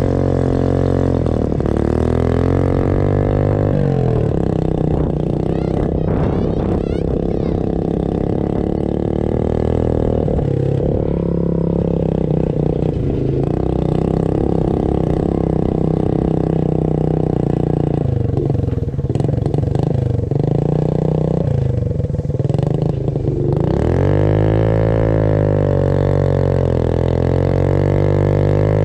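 Motorcycle engine running at low speed while it pulls a sled. Its pitch dips and rises with the throttle, holding fairly steady for long stretches in between.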